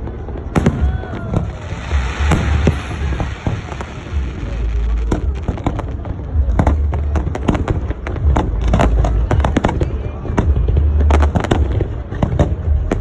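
Fireworks display: a dense, continuous run of sharp bangs and crackles over deep booms.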